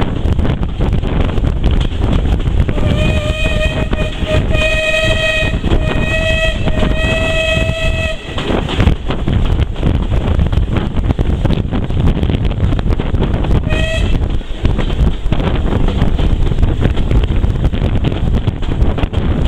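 A locomotive's single-pitched whistle, sounded as about four toots run together for some five seconds, then one short toot about fourteen seconds in, over a steady low rumble.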